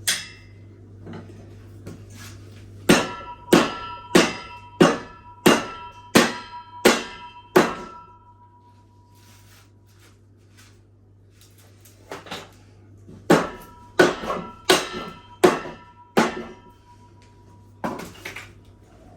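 Steel clanking on steel: two runs of sharp, ringing metal strikes, about one and a half a second, with a steady low hum underneath.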